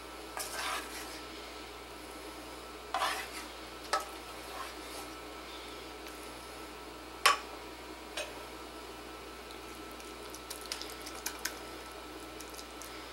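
Ladle scraping and knocking against a metal pot as ground beef is scooped out and dropped onto mashed potato, with a sharp clink about seven seconds in, then a wooden spoon spreading the meat in the dish with small scrapes.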